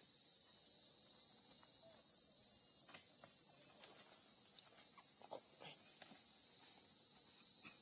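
Steady high-pitched drone of a forest insect chorus, crickets or cicadas, with a few faint scattered clicks and short chirps over it.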